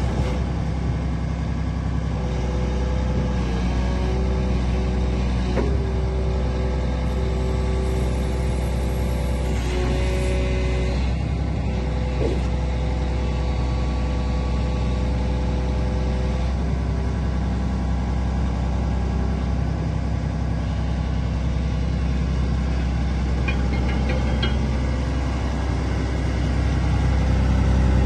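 Volvo EC360B LC crawler excavator's diesel engine running steadily while the boom and arm are worked through the hydraulics. The engine grows louder near the end as the machine starts to slew.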